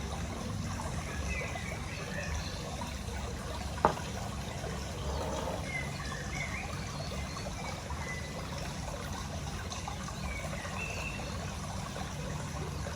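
Steady background noise like trickling water, with a few faint high chirps and one sharp click about four seconds in.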